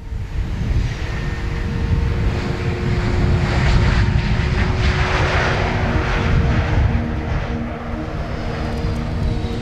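Airbus A380 on approach to land, its jet engines making a steady roar with a few humming tones. It is loudest about four seconds in and eases toward the end, with gusty wind buffeting the microphone.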